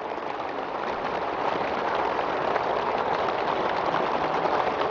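Large audience applauding steadily, a sustained ovation.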